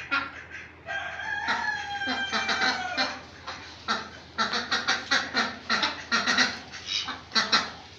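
A rooster crows once, one long call of about two seconds that falls slightly in pitch. It is followed near the middle by a run of short, sharp calls from the mixed flock of chickens and ducks, a few a second.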